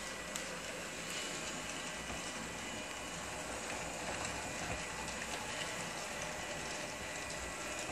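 Homemade robotic wet Swiffer driving across a hardwood floor, its drive motors and mop pad making a steady, even hiss-like running noise.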